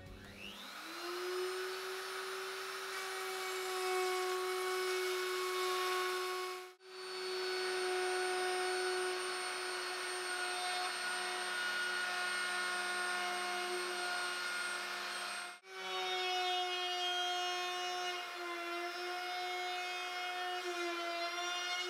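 Electric wood router spinning up within the first second, then running at speed with a steady high whine as it cuts grooves and template-routed handle slots in birch. The whine cuts off for an instant twice, and its pitch dips slightly under cutting load near the end.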